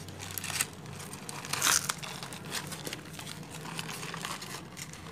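Brown paper bag crinkling and rustling as hands untwist and open its gathered neck: irregular crackles, with the loudest burst about a third of the way in.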